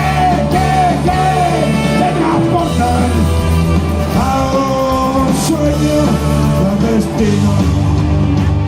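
Rock band playing live and loud, with a lead line of held, bending notes over a steady bass-heavy backing.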